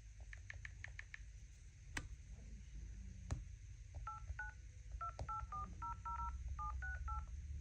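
Phone keypad touch tones as a number is dialled: about a dozen short two-tone beeps in an uneven rhythm over the second half. Before them come a quick run of faint ticks and a couple of sharp clicks.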